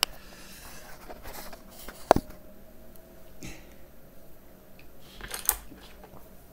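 Handling noises: small clicks and knocks of objects being picked up and set down on a wooden table, the sharpest a single click about two seconds in.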